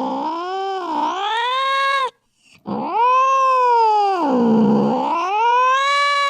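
Angry cat yowling (caterwauling): long, drawn-out wailing calls that sink low in pitch and climb again. One call ends about two seconds in, and after a brief pause a second long yowl follows.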